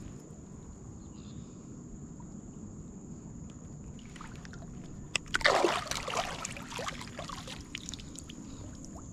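Water splashing and sloshing beside a kayak: a loud burst of splashing starts about five seconds in and lasts about two seconds, over a steady low background.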